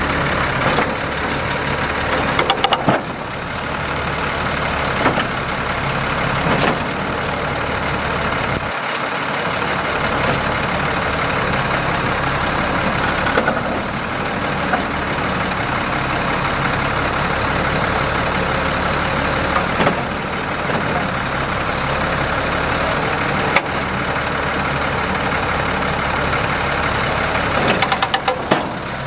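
Diesel engine of a 2002 International 4800 dump truck idling steadily, with a few short clanks and knocks from the front snowplow as it is angled.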